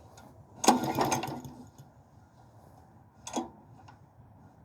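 Lawnmower engine's starter rope pulled by hand, spinning the engine over with a short whirring rush about a second in and a shorter one later. The carburetor is not yet fitted, so the engine turns over without firing.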